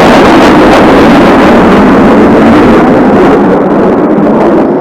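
Jet roar of Blue Impulse's Kawasaki T-4 jet trainers flying over, a loud steady rushing noise that starts to fade in the last second or so as they move away.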